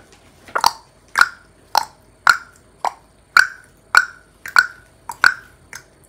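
About ten hollow mouth pops, evenly spaced a little under two a second, clicked out in a tick-tock rhythm like a clock ('뽁').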